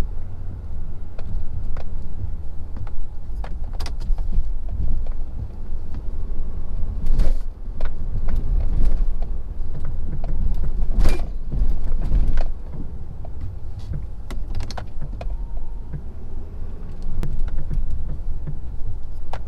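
A Ford F-250 Powerstroke's 6.7-litre V8 turbo-diesel running under load as the truck plows, a steady low rumble. Scattered sharp knocks and clunks come through it, the loudest about seven and eleven seconds in.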